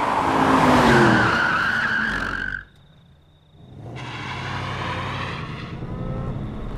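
A car speeds by and brakes hard, its tyres skidding, until the sound cuts off abruptly about two and a half seconds in. After about a second of near quiet with a thin high tone, a car engine running fades back in.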